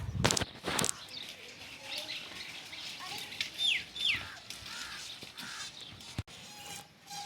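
Two quick, high, downward-sliding bird calls about halfway through, among faint chirps, with two sharp knocks near the start and a click near the end.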